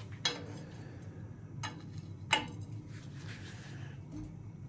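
A few sharp metallic clicks and taps as a bottom-bracket cup wrench is handled and fitted onto the bicycle's bottom bracket, over a steady low hum.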